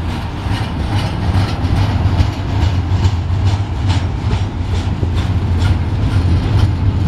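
Double-stack intermodal train's loaded well cars rolling past close by: a steady low rumble of steel wheels on rail, with a run of sharp clicks a few times a second as the wheels pass over the rail.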